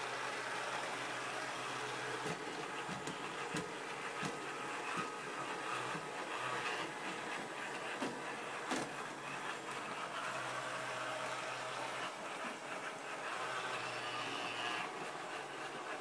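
Laqulito robot vacuum cleaner running across a wooden floor: a steady motor whir and hum, with a few short light knocks as it moves along.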